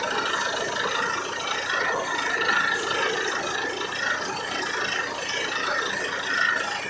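Borewell drilling rig running, a steady continuous mechanical noise with a wavering higher whine over it.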